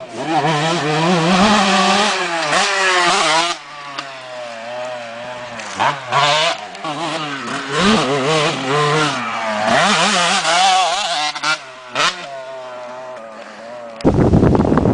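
Two-stroke motocross bike engine revving hard, its pitch climbing and dropping again and again as the throttle is worked. About fourteen seconds in it gives way to a loud rough rush of noise.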